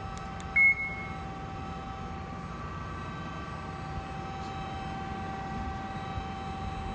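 A short, high beep from the Amada NC9-EX CNC control about half a second in as its START button is pressed. It sounds over the steady hum of the Amada RG-25 hydraulic press brake's pump motor running.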